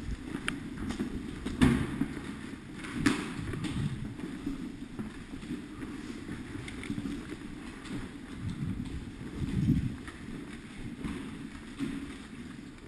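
Muffled rustling and bumping of a moving player's gear and footsteps, rubbing close against a worn camera, with a few sharp knocks about half a second, one and a half and three seconds in.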